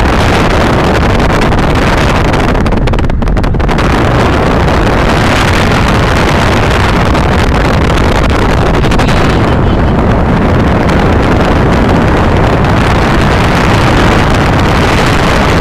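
Loud, steady rush of wind and road noise heard from inside a car driving at speed.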